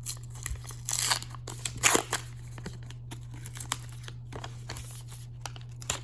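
Foil wrapper of a hockey card pack crinkling and tearing as the pack is opened and the cards are handled, in short bursts that are loudest about one and two seconds in, followed by lighter rustles and ticks. A low steady hum lies under it.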